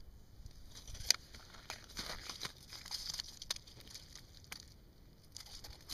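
Crunching and crackling of broken ice and slush being shifted around an ice-fishing hole, in scattered small bursts, with a sharp click about a second in.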